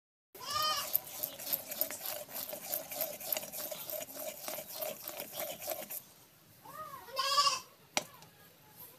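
Thick syrup bubbling and popping in a cooking pot, a dense crackle that stops about six seconds in. An animal call sounds briefly near the start and again, louder, about seven seconds in, and a sharp click follows a moment later.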